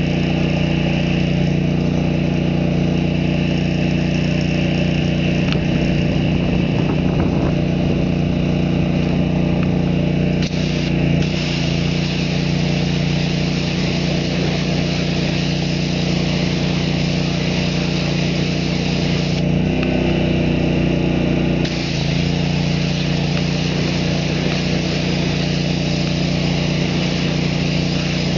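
Pressure washer engine running steadily while the wand sprays cleaner onto a truck wheel. The tone shifts briefly about a third of the way in and again about two-thirds through.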